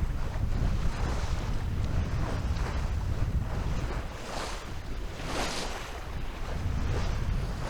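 Wind buffeting the microphone in a steady low rumble, with water rushing and splashing along the hull of a sailboat under sail; two louder swashes of water come about four and five and a half seconds in.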